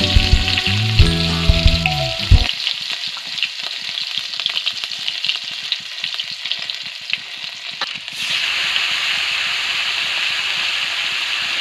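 Food frying in hot oil in a pan: a crackling sizzle full of tiny pops, which turns into a louder, denser, steadier hiss about eight seconds in. Music plays over the first couple of seconds.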